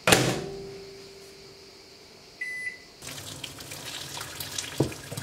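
A metal pot clangs and rings out, fading over a couple of seconds. A kitchen appliance gives a short high electronic beep about two and a half seconds in. About three seconds in, water starts running from a tap and keeps rushing steadily.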